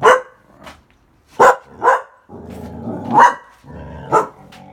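Dog barking: five loud, short woofs, with a low rumble between the later barks.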